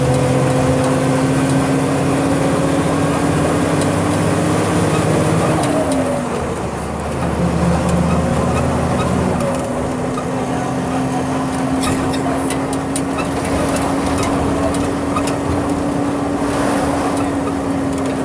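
Volkswagen 17.230 EOD city bus running under way, its diesel engine drone carrying the steady singing whine of the turbocharger. The whine falls away about six seconds in, returns a second later and holds steady. A few short rattles come near the end.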